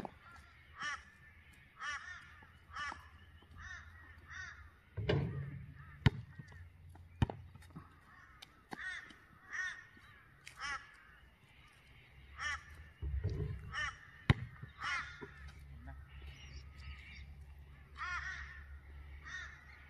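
A crow cawing over and over in runs, about one caw a second, with a few sharp thuds of a basketball hitting the court; the loudest thud comes about six seconds in.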